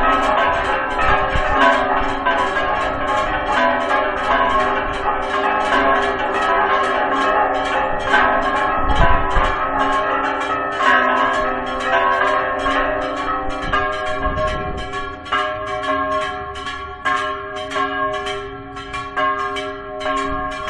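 Several church bells ringing a fast Mexican repique, struck about three times a second with their tones ringing over one another, a deep bell sounding beneath the higher ones. The peal is the third call to mass, and it grows quieter in the last several seconds.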